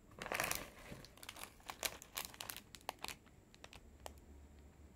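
Plastic snack wrapper crinkling as it is torn open by hand: a dense burst of crackling about half a second in, then scattered sharp crinkles that thin out after about three seconds.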